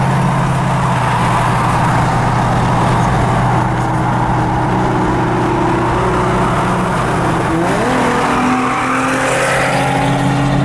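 2011 Hyundai Genesis Coupe's 3.8 L V6 running through catless aftermarket midpipes and a Flowmaster 80 Series muffler, holding a steady engine speed with a constant low drone. A fainter whine slides up and down in pitch in the second half.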